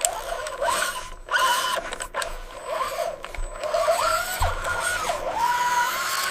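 Small electric motors and gearboxes of RC construction models whining, the pitch rising, falling and stepping as they start, stop and change speed, with a few short clicks.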